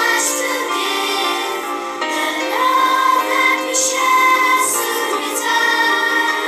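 Primary-school children's choir singing, with several long held notes.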